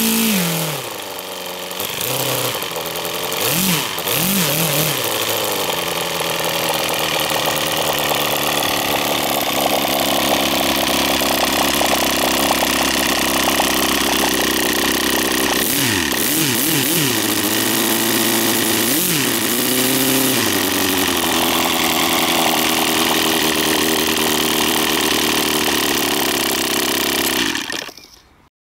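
O.S. Pegasus FF-320 53 cc flat-four four-stroke glow engine running with its propeller. The pitch drops to a low idle about a second in, then rises and falls in three brief throttle blips. Between the blips it runs steadily, and the sound cuts off near the end.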